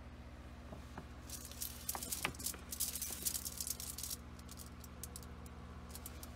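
A steady low hum, with about three seconds of crackly rustling and clicks starting just over a second in, then a few scattered clicks.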